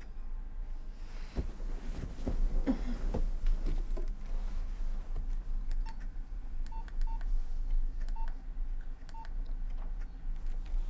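Rustling and shuffling, then a mobile phone's keypad beeping as a number is keyed in: five short beeps on one pitch, each with a small click, spaced about a second apart.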